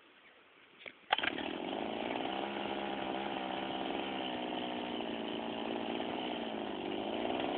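A small engine fires and catches about a second in, right after a brief click, then runs steadily with a buzzy, raspy note. It revs up slightly near the end.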